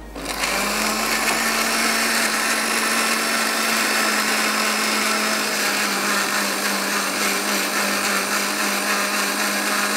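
Electric countertop blender switched on and running at a steady speed, puréeing raw mango, garlic, mint and chilies with a little water into a chutney. The motor comes up to speed within the first half second, then holds one steady pitch.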